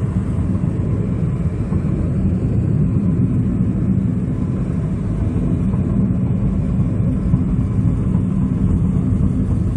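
Engine and road noise of a moving vehicle: a steady low drone.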